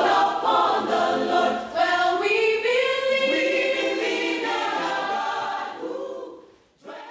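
A choir singing held, slowly moving notes, fading out near the end.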